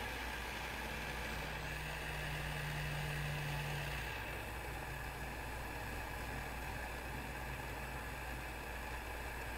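Hot air rework gun blowing a steady stream of hot air onto small circuit boards, reflowing solder paste under the chips. A soft, even whoosh with a faint hum; the hiss gets a little duller about four seconds in.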